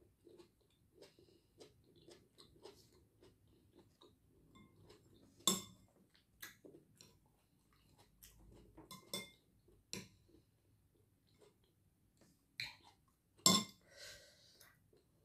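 Close-up eating: quiet chewing and mouth sounds, broken by sharp clinks of a metal spoon against a ceramic bowl and plate. The loudest clink comes near the end.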